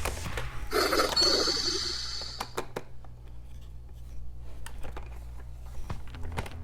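Plastic action-figure toys being handled, with scattered sharp clicks and knocks. A brief noisy burst about a second in fades away over a second or so.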